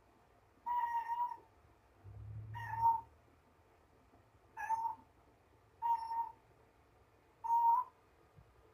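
Mother domestic cat meowing, five short calls of steady pitch about every one and a half to two seconds, directed at a toy ball.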